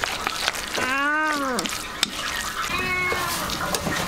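A cat meowing: one long meow that rises then falls, about a second in, and a fainter, shorter one around three seconds in.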